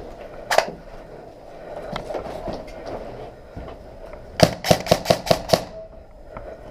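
Airsoft gun firing: a single shot, then about four seconds later a quick string of six shots, about five a second.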